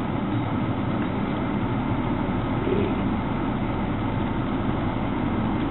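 Steady engine and road noise inside a car's cabin as the car drives off.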